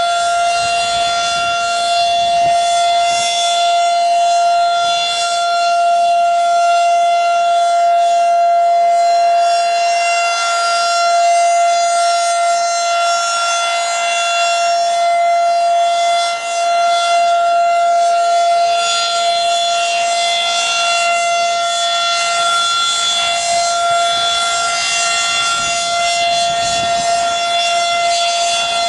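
Federal Signal 2001-SRN/DC electromechanical warning siren sounding a steady tone during its test, the pitch holding constant while the loudness swells and fades slightly.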